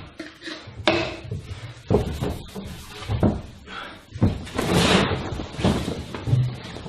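Several irregular thumps and bangs about a second apart, with a noisier stretch in between.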